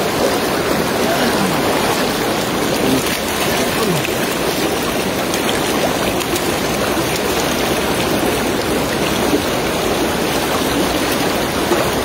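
Fast, shallow water rushing steadily around a wader at the outflow of a dam: a loud, even rush of current.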